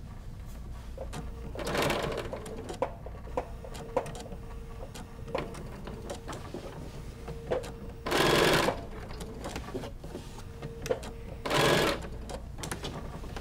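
Domestic sewing machine sewing a straight stitch slowly in short runs through an open-toe foot: the motor hums and the needle clicks stitch by stitch. Three louder, half-second rushes of noise come near the start, about two thirds through, and near the end.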